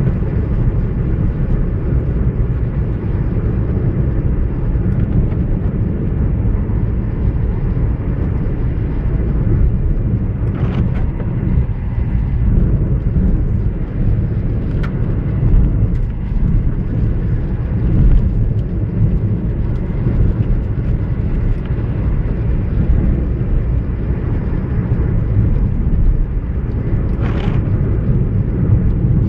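Steady low rumble of a car driving on a wet road, heard inside the cabin: engine and tyre noise. Two brief higher swishes cut through it, one about eleven seconds in and one near the end as the windscreen wiper sweeps across.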